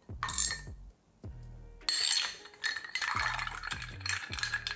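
A large ice cube is set into a glass mixing glass with tongs and clinks against it. About two seconds in, a bar spoon starts stirring the ice in the mixing glass: a continuous quick clinking and rattling. Background music with a steady beat runs underneath.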